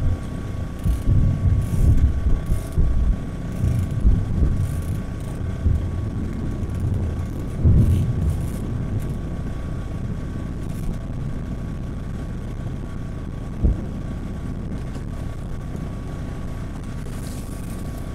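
Outboard motor idling steadily, with wind gusting on the microphone through the first half. A single short thump comes about fourteen seconds in.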